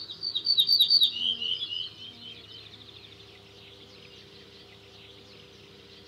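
Songbirds singing: a bright, quick twittering phrase in the first two seconds, then softer scattered chirps, over a faint steady hum.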